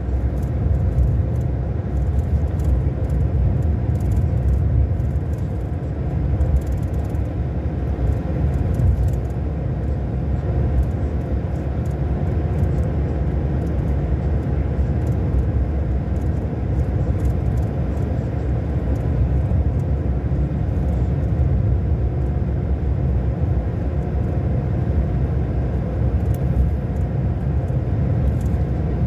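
Scania K400 Euro 5 bus's 13-litre straight-six diesel running steadily at constant revs: an even low rumble with a steady drone and no rise or fall in pitch.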